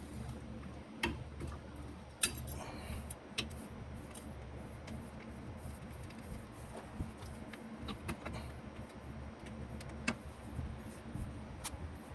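Scattered light clicks and taps of metal hand tools at work, about one every second or two, over a low steady hum.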